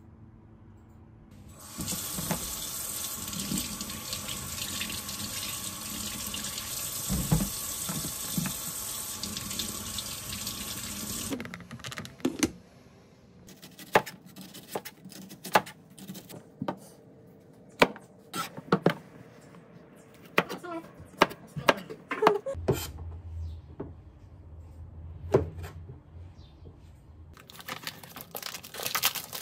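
Water running from a kitchen tap into a sink for about ten seconds, cutting off suddenly. Then a knife chops on a plastic cutting board in sharp, uneven clicks. Near the end a plastic package crinkles as it is opened.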